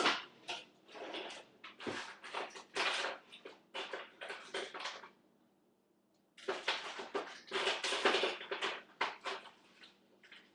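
Someone moving about and handling things: irregular rustling and light knocks in two stretches, with a short quiet gap about five seconds in.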